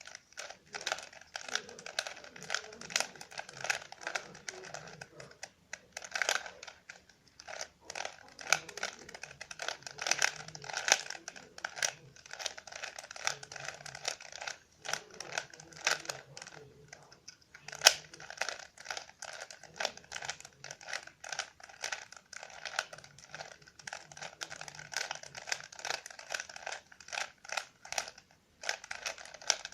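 Rubik's Cube being turned by hand: a rapid, irregular stream of plastic clicks and clacks as the layers are twisted.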